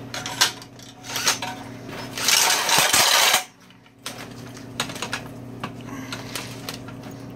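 Electric drill spinning a long 1-inch paddle bit down inside a Harley stock exhaust pipe, the bit grinding and rattling through the ceramic catalytic converter core in repeated bursts of metallic scraping over the steady hum of the drill. The drill stops for about half a second near the middle, then runs on.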